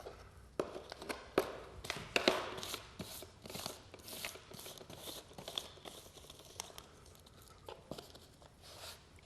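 Short scraping strokes on the edge of a laminate plank, about two a second and fewer toward the end: debris from the shaved-off locking lobe being cleared out of the plank's groove track.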